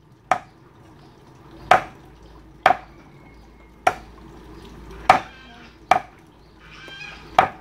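Meat cleaver chopping duck into pieces on a wooden chopping block: seven heavy chops, roughly one every second or so.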